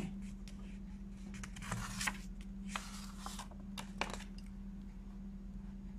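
Pages of a glossy picture book being handled and turned: a few short paper rustles and a light tap, over a steady low hum.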